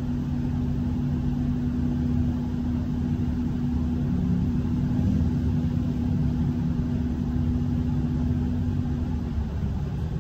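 City bus engine idling while the bus stands still, heard from inside the cabin as a steady low rumble. A steady hum over it stops about nine seconds in.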